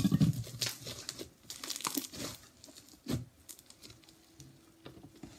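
Slime with foam mixed in being squeezed and pulled apart by hand, giving irregular crackling and squelching, loudest at the very start.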